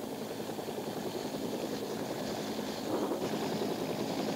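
Bell UH-1 Huey helicopter flying, its rotor beating in a fast, steady chop. The sound gets a little louder about three seconds in.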